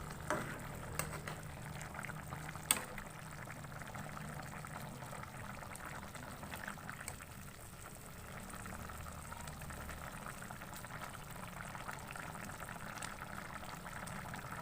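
Chicken curry simmering and bubbling in a pot over a steady low hum, with a few light clicks in the first three seconds, the last one the sharpest.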